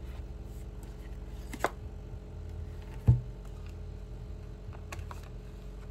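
Hands handling oracle cards on a desk: a few light clicks and one dull thump about three seconds in, over a steady low electrical hum.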